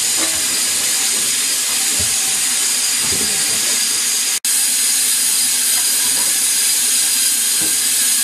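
Steady, loud hiss of steam escaping from a standing Fairlie's Patent narrow-gauge steam locomotive, broken once briefly near the middle.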